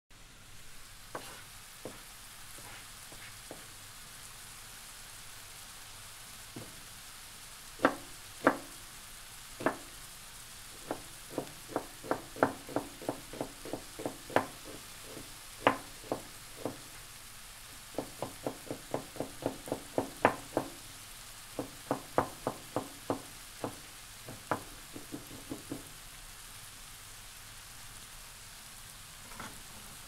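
Onions sizzling in butter in a pan, a steady frying hiss. Over it, a knife chops in quick runs of sharp knocks, about three a second, starting about a quarter of the way in and stopping shortly before the end. The knocks are louder than the sizzle.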